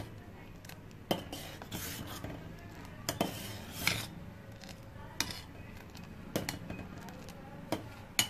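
A steel ladle stirring milk custard in a stainless steel pot, clinking and scraping against the pot's sides with a sharp knock about once a second.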